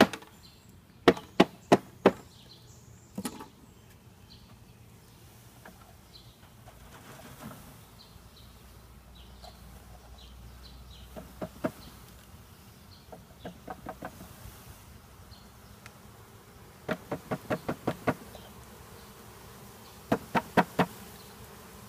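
A package of honey bees being knocked against something hard in quick bursts of sharp raps, some runs fast and close together, with bees buzzing faintly in between. The knocking drives the cluster to the bottom of the package so the bees can be shaken out into the hive.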